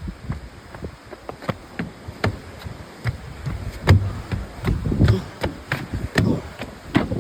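Footsteps on a hiking trail, an irregular run of sharp ticks and knocks, with heavier low thumps and bumps from about four seconds in.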